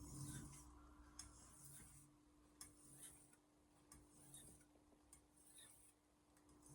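Faint strokes of a steel kitchen knife on a Shapton Glass whetstone: a soft, hissy scrape about once a second with light ticks between, over a low steady hum.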